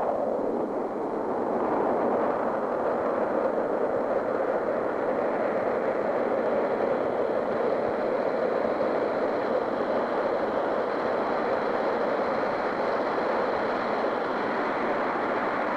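Rocket-engine sound effect: a steady, loud roaring rush of noise that follows a falling sweep and holds without change.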